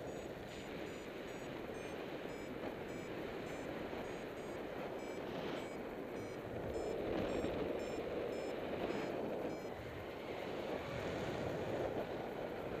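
Steady wind rushing over the microphone in flight, swelling about halfway through, with a paragliding variometer beeping about twice a second; the beeps stop a few seconds before the end.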